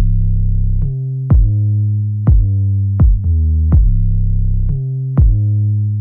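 Electronic background music: a synthesizer bass line under a drum-machine kick beat, about one kick a second.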